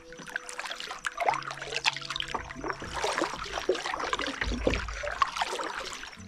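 Double-bladed kayak paddle strokes: the blades dipping into the water on alternate sides, with splashing and water trickling and dripping off the blades.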